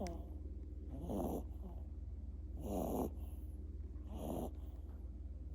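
A sleeping pet snoring: three snores about a second and a half apart.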